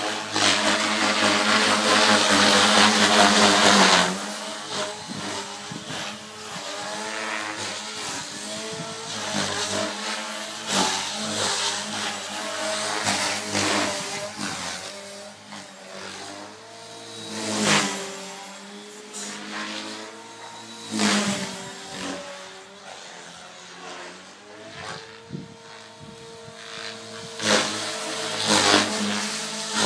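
KDS Chase 360 450-size electric RC helicopter flying 3D freestyle. Its rotor and motor whine rises and falls in pitch as the blades load up through the manoeuvres. A loud rush of blade noise fills the first four seconds, and shorter loud swells follow later.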